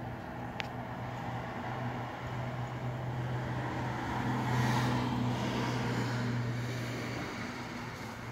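A passing vehicle: its noise swells to a peak about halfway through and then fades, over a steady low hum, with one short click near the start.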